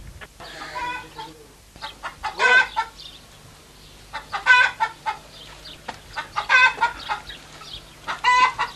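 Chickens clucking, with a short, loud call about every two seconds.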